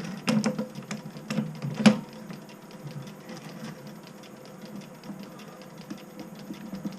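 Small metal lathe running with a fast, fine ticking. Several sharp metallic knocks come in the first two seconds, the loudest just before two seconds in.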